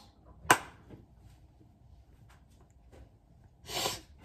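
A person's short, sharp sneeze about half a second in, then a breathy burst of air near the end.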